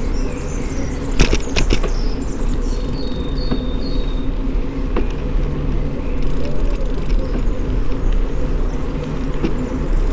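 Bicycle rolling over city asphalt, heard from a microphone mounted on the bike: a steady rumble of tyres and road, with a few sharp rattles about a second in. Short high chirps come through about three to four seconds in.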